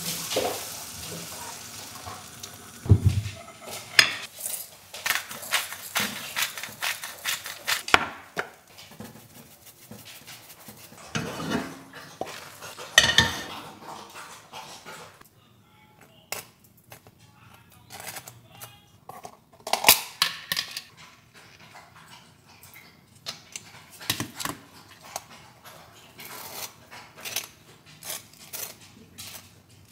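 Eggs sizzling as liquid egg whites are poured into a hot frying pan, then a slotted spatula repeatedly scraping and knocking against the nonstick pan while scrambling, with clinks of dishes and utensils.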